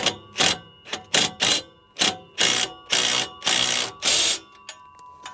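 Hand ratchet wrench clicking in quick back-and-forth strokes, about two a second, running lock nuts up onto new exhaust bolts. The later strokes are longer, and the strokes die away near the end.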